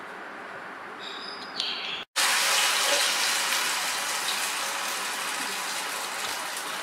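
Hot oil sizzling loudly as a coated pinwheel samosa goes into the deep-frying pan, starting suddenly about two seconds in and easing a little. Before it there is a low hiss and a brief ringing clink.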